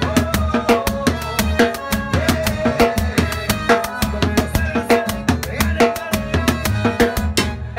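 Timbales played with sticks over a recorded band track: rapid, sharp stick strokes on the drums with bass and pitched backing lines underneath.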